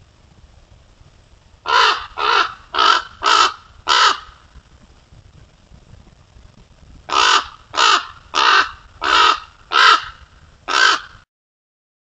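Common raven calling: a run of five short, harsh calls about two seconds in, then six more from about seven seconds in, spaced roughly half a second to a second apart. The sound cuts off suddenly near the end.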